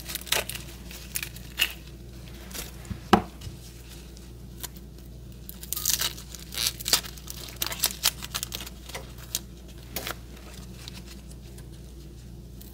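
Dry, papery onion skin being peeled and torn off a yellow onion by gloved hands: irregular crinkling and tearing, with one sharp knock about three seconds in.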